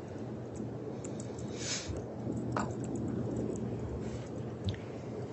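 Room tone from a courtroom microphone: steady hiss and low hum, with a few faint clicks and a brief rustle about two seconds in.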